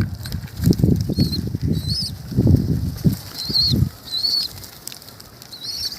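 Domestic homing pigeons flapping their wings in several short bursts over the first four seconds. Short high chirps repeat throughout.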